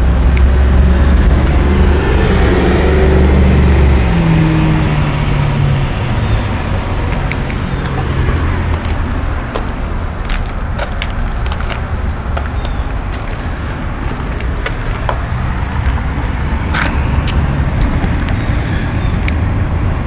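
Road traffic: a vehicle passes close by in the first few seconds, its engine note falling as it goes, then a steady lower traffic rumble with a few scattered clicks.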